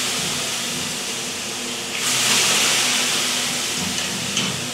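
Water thrown onto hot sauna stones, hissing into steam (löyly). A fresh ladleful lands about two seconds in, the hiss swelling again and then slowly fading.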